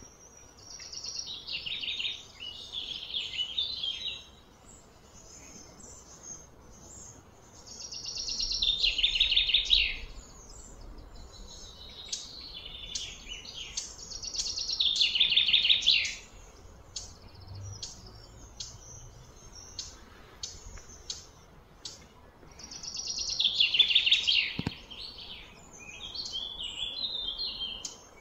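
A bird singing: a rapid pulsed phrase of about two seconds that falls in pitch, repeated about five times a few seconds apart.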